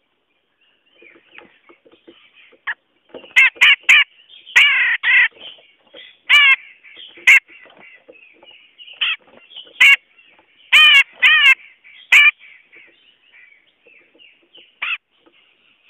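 Cucak jenggot (grey-cheeked bulbul) calling: loud short notes, each a quick rising-then-falling slur, given singly and in quick runs of two or three, with softer chatter between them.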